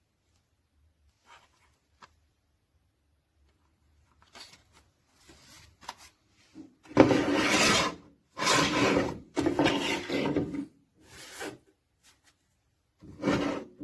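Rubbing and scraping noises in a string of bursts after a few near-silent seconds, loudest around the middle.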